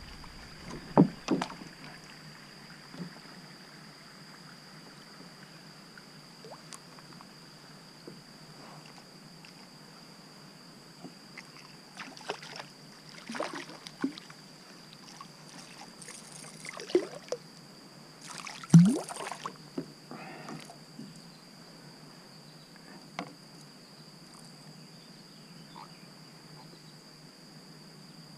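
A hooked catfish splashing and thrashing at the water's surface beside a kayak as it is reeled in: a string of short, sudden splashes, the loudest about two-thirds of the way through.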